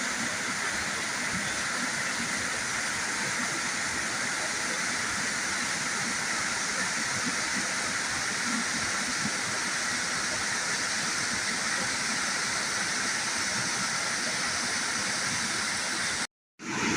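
Waterfall rushing steadily: an even hiss of falling water that cuts out completely for a moment near the end.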